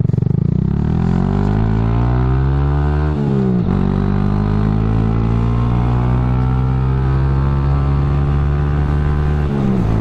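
Honda Grom MSX125's 125 cc single-cylinder engine running through a cheap aftermarket dual-outlet full exhaust, accelerating hard. The pitch rises for about three seconds, drops sharply at an upshift, holds steady at speed, and dips again at another shift near the end.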